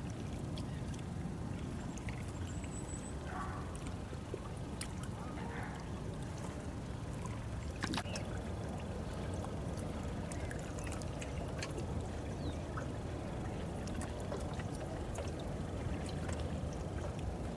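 Lakeshore ambience: small waves lapping and trickling against rocks over a low, steady rumble, with scattered faint clicks and a sharper click about eight seconds in.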